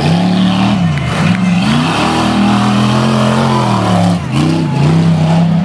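Race-modified off-road truck's engine revving through tight turns on a dirt course, its pitch climbing and falling with the throttle. There is a short dip about four seconds in, over the hiss of spinning tyres throwing dirt.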